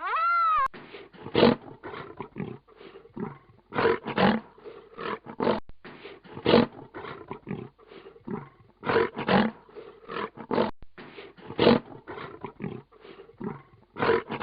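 Lion roaring in a long run of short, rough calls, several a second, with louder ones every second or two.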